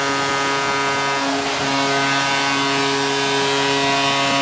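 Arena crowd cheering after a home goal over the steady, sustained blast of the arena's goal horn.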